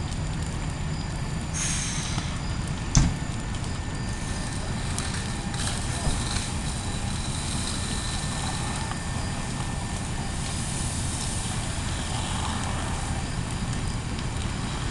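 Steady low rumble of a fully involved house fire burning, mixed with fire engines running while a hose is sprayed on it. One sharp pop about three seconds in.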